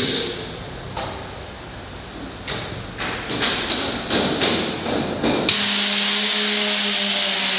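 Cabinet vacuum packaging machine and its vacuum pump at work: irregular knocks and rattles, then about five and a half seconds in a sudden steady hiss of air starts, with a low hum under it.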